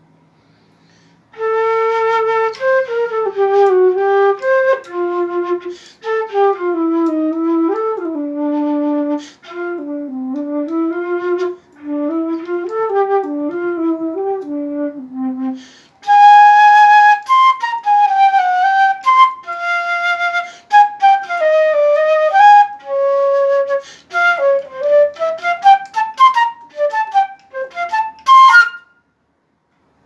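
Silver Weril transverse flute played solo, a test of its low and high registers: melodic phrases in the low register for the first half, then, after a short break, phrases in the high register, stopping shortly before the end.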